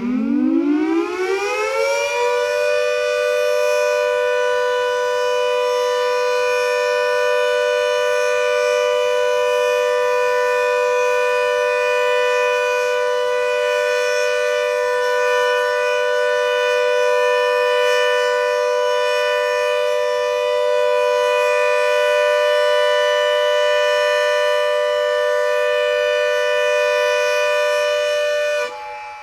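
Warning siren under test, winding up in pitch over the first two seconds to a loud, steady wail of two close tones with overtones, then beginning to wind down just before the end.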